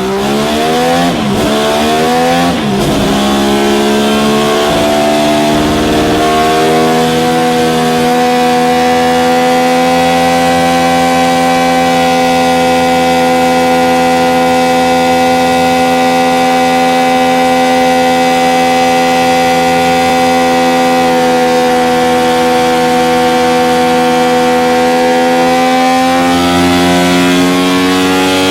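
Mazda Eunos Cosmo's 20B three-rotor turbocharged rotary engine revving up over the first few seconds, then held at a steady high speed, its pitch lifting a little near the end.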